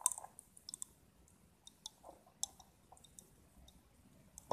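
Popping candy crackling in the mouth: faint, irregular little clicks and pops, a dozen or so scattered across the few seconds.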